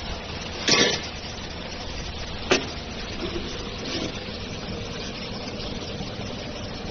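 Steady machine noise in a workshop, broken by a few knocks from welded sheet-metal pieces being handled. There is one knock near the start, a sharper one a couple of seconds later, and a weaker one after that.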